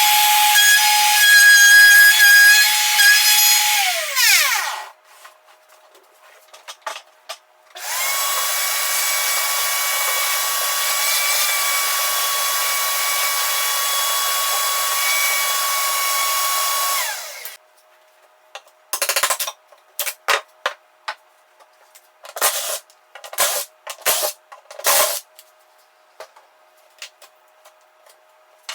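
Electric power tool's motor running with a high steady whine, then winding down about four seconds in. It is started again about eight seconds in, runs up to speed and winds down again about seventeen seconds in, followed by a string of short sharp sounds.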